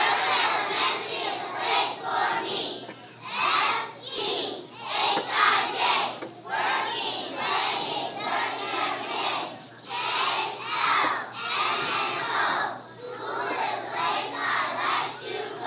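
A large group of children shouting a chant in unison, in a steady rhythm of loud pulses.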